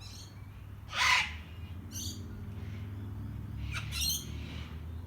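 A bird calling: a loud, harsh call about a second in and another near four seconds, with shorter, higher calls at the start and at about two seconds.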